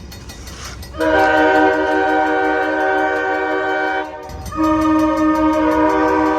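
A train's multi-note chime signal sounding two long blasts, the second starting after a short break and cut off abruptly, over a low rumble.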